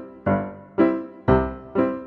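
Background music: piano-like keyboard chords struck about twice a second, each fading before the next.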